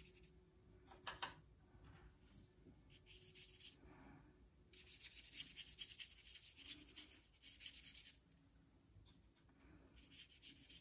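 Faint strokes of a paintbrush rubbing across paper as a wall background is painted in, coming in runs with a dense stretch from about five to eight seconds in.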